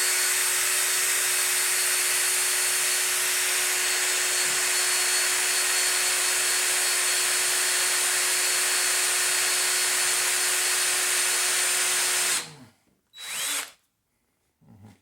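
Power drill running steadily at one speed, boring an oiled pilot hole in metal. It stops about twelve and a half seconds in, then runs again briefly about a second later.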